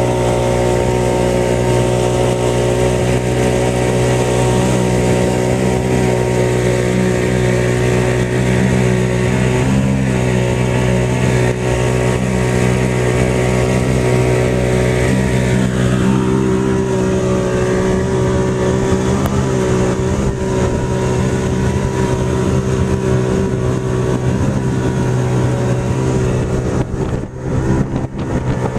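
Jet ski engine running steadily under way at speed, its pitch shifting slightly about ten seconds in and again around sixteen seconds.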